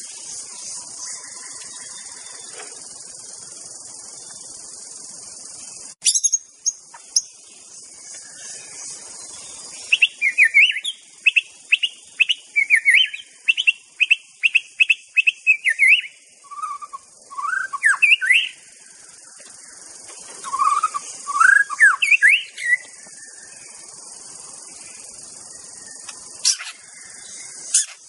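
White-rumped shama (murai batu) song: about ten seconds in, a fast run of sharp repeated notes, then rising whistled phrases, over a steady high hiss.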